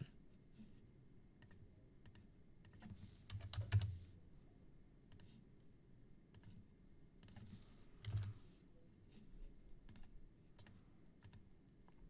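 Faint, scattered clicks of a computer keyboard and mouse as dimensions are typed in, with a couple of soft low thumps about four and eight seconds in.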